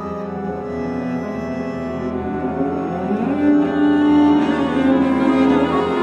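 Chamber music from the film's score: a bowed cello plays held notes, slides up to a long held note about halfway through, and the music grows louder.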